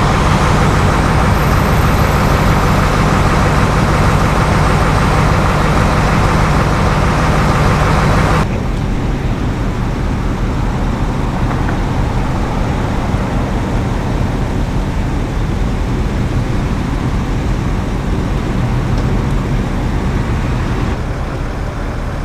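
Steady hum of an idling vehicle engine over road traffic noise. About eight seconds in it cuts off abruptly to a quieter, steady traffic rumble.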